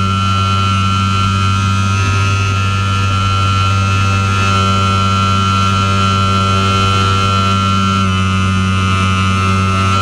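Airflow noise in the cockpit of a Swift S1 aerobatic glider in flight: a steady rush of wind with a strong low hum and a high whistle held at an even pitch.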